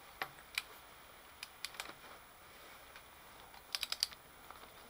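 Sharp metallic clicks from a socket and ratchet torque wrench on the vise screw: a few single clicks, then a quick run of about five clicks close together late on.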